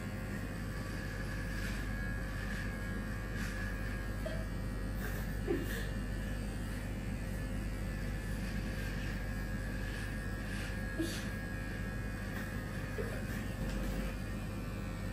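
Electric hair clippers running with a steady buzz and low hum while shaving hair, with a couple of faint brief clicks.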